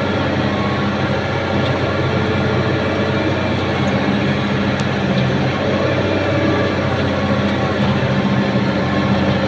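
A large engine running steadily: an even, low drone that holds the same pitch throughout.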